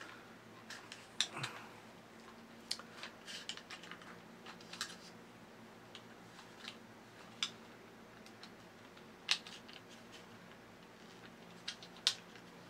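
Scattered light clicks and taps of a metal shaft being pushed through 3D-printed plastic leg parts and an idler wheel, the loudest two about 9 and 12 seconds in.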